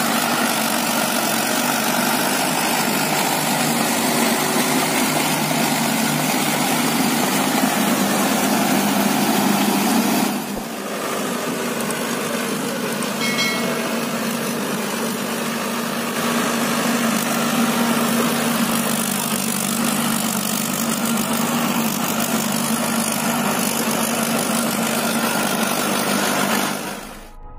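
Mahindra Arjun 555 DI tractor's four-cylinder diesel engine running steadily as the tractor works through deep mud. The sound drops suddenly and becomes more distant about ten seconds in, and fades out at the very end.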